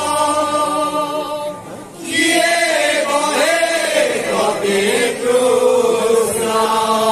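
A group of men chanting a kirtan together in long held sung notes. The voices drop away briefly just before two seconds in, then come back at full strength.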